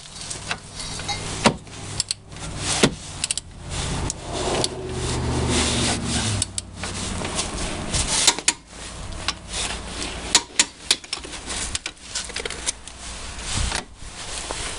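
Hand tools on the hub mounting bolts: irregular metallic clicks, clanks and ratcheting as the bolts are run in and torqued. A low hum rises for a few seconds near the middle.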